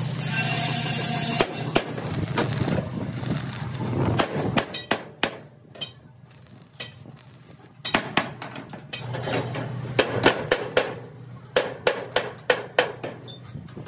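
Arc welding on steel crackles for about the first second and a half over a low steady hum. From about four seconds in comes a long series of sharp, irregular hammer taps on steel plate, in quick runs, with the low hum returning beneath them in places.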